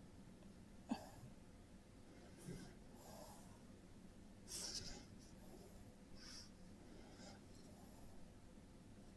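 Near silence: faint room tone, with one soft click about a second in and a few short, soft hisses scattered through the rest.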